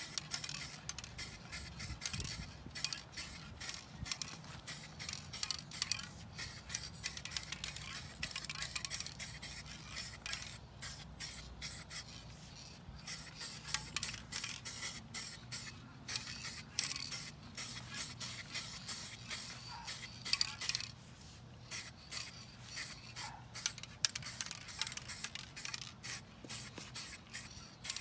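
Paint being sprayed onto a wheel rim, hissing in many short bursts that start and stop throughout.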